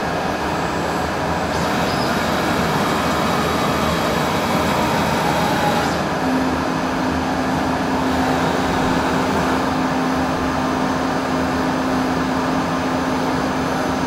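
CNC milling machine running with a steady mechanical noise; about six seconds in a steady low hum joins it as the table jogs slowly along the X axis.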